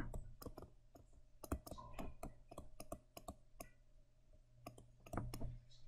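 Faint, irregular clicks and taps of a stylus writing on a tablet screen, a few a second with a small cluster near the end, over a steady faint low hum.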